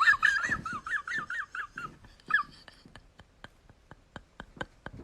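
A dog whining in quick, high, wavering cries that stop about two and a half seconds in, followed by faint ticking about four times a second.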